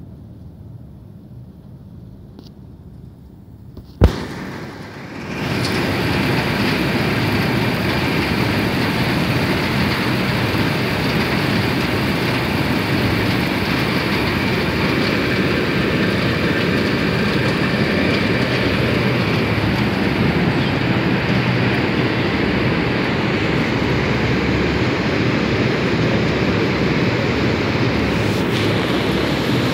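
Cotton ginning plant machinery running with a loud, steady mechanical noise. It starts as a quieter low rumble, and about four seconds in a single sharp knock is followed by the full machine noise swelling up within a second or two and holding.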